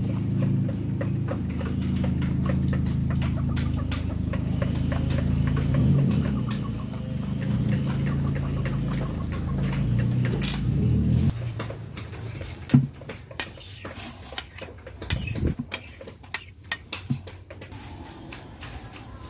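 A metal spoon scraping and clicking as it scoops rotten flesh from a cut cactus, over a steady low hum that stops abruptly about eleven seconds in. After that, only sparse clicks and scrapes of the spoon and tweezers on the cactus remain.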